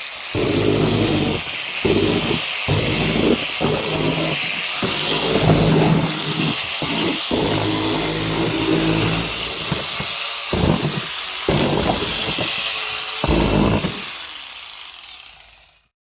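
Electric power tool running, its high motor whine dipping briefly in pitch several times as it takes load, with heavier grinding or churning underneath that comes and goes; near the end the whine winds down.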